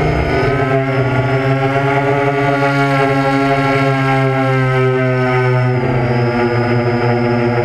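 A small UAV's motors and propellers whining steadily, as picked up by its own onboard camera, over a wash of air noise; the pitch steps slightly about six seconds in.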